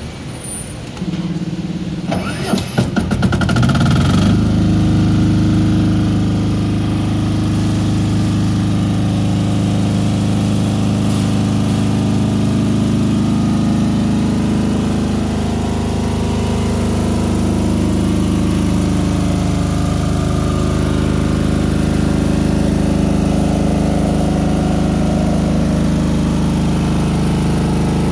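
BADJA BDG12000EX1 super-silent diesel generator starting on its key switch: the starter cranks for about two seconds, the engine catches about four seconds in, then runs at a steady hum.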